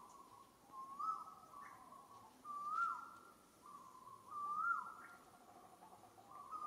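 Clear, whistle-like animal calls repeated every second or two, each a level note that rises and then drops away.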